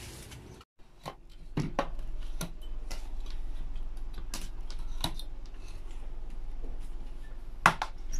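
Indoor handling noises: scattered light clicks and knocks as a black folding laptop table is handled and set on a carpeted floor, with a louder knock near the end. A low steady hum runs underneath.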